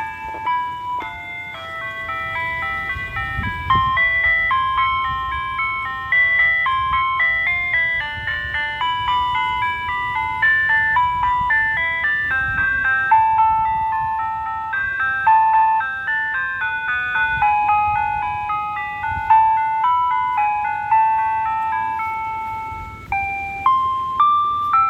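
Ice cream truck's jingle playing loud and without a break over its loudspeaker: a melody of short, high chime-like notes.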